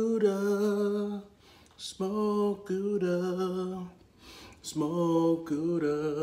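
A man humming "mmm" with his mouth full while tasting food, a sound of enjoyment: three long held notes, each stepping a little in pitch, with short pauses between them.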